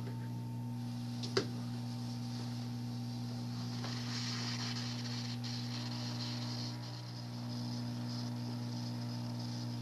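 Hot-air rework station blowing on a surface-mount voltage regulator to melt its lead-free solder: a steady hum with a faint hiss of air, and one short click about a second and a half in.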